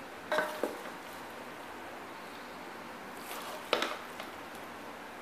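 Wooden spoon scraping and knocking against a steel cooking pot and glass serving platter as macaroni is dished out, in two short clusters about half a second in and about three and a half seconds in, the first with a brief ring. A steady hiss lies underneath.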